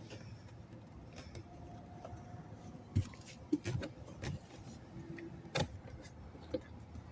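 Sharp clicks and knocks of hard plastic trim and tools being handled, about five in the middle few seconds, while working at a clamped-in panel under a truck dashboard, over a low steady background hum.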